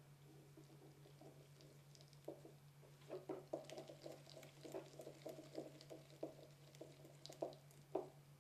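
Faint, irregular small clicks and scratches as a cable terminal and screw are fitted to the side of a projection TV lamp, over a steady low hum.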